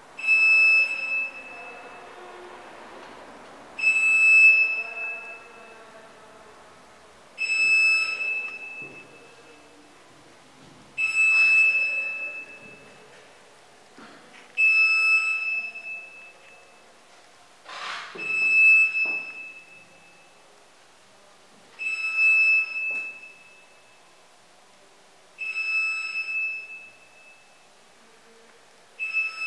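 A high ringing tone sounding nine times at an even pace, about once every three and a half seconds, each starting sharply and fading away over about a second. A single knock comes about two-thirds of the way through.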